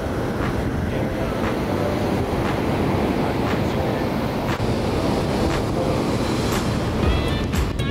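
Waves on a high-running lake slapping against wooden slats: a steady rushing wash broken by repeated knocks about every half second to a second.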